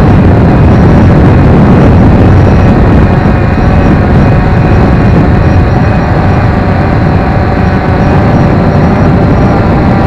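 Multirotor drone's motors and propellers running in flight, heard from an action camera mounted on the drone itself. A steady whine of several tones over a loud low rumble.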